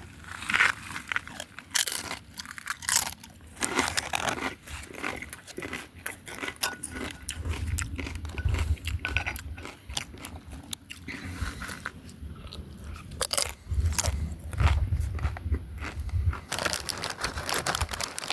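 Someone crunching and chewing tortilla chips close to the microphone, in irregular crisp bites. A low rumble runs under it through the middle.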